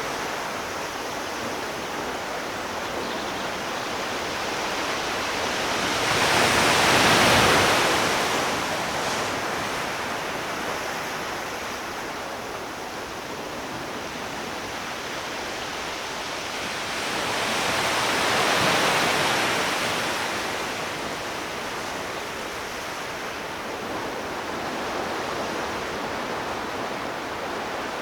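Sea waves washing onto a shore over a steady hiss of surf, two waves swelling up and falling away, about ten seconds apart.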